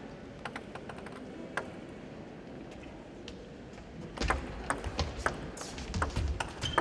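Table tennis ball clicking a few times as it is bounced before the serve, then, from about four seconds in, a fast rally: quick sharp clicks of the ball off paddles and table, with low thuds underneath.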